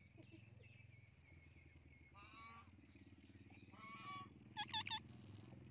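Parrots calling quietly: two brief harsh squawks a couple of seconds in and again about four seconds in, then a few short sharp calls near the end.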